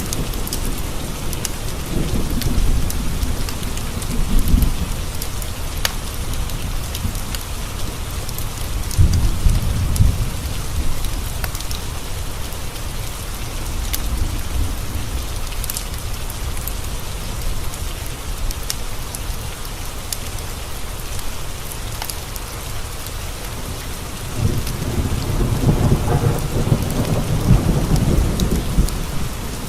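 Steady rain with rolling thunder: low rumbles swell a few seconds in, again around ten seconds in, and for a longer stretch near the end. Scattered sharp ticks sound over the rain.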